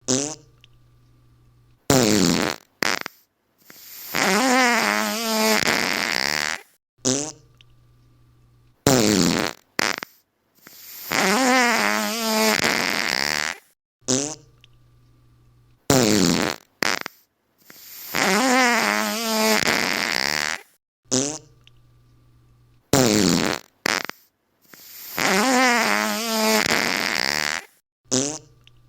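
Fart sound effects in a pattern that repeats four times, about every seven seconds. Each round has a short blast, two quick small pops, a long fart of about three seconds whose pitch wobbles, and then another short blast.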